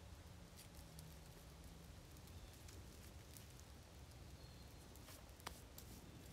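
Faint crackling of a small wood campfire: scattered light pops and one sharper snap about five and a half seconds in, over a low steady rumble.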